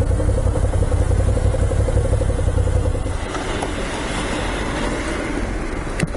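Moto Guzzi V7 Special's air-cooled transverse V-twin idling with a low pulsing beat, then switched off about three seconds in, leaving a steady background hiss. A single sharp click near the end.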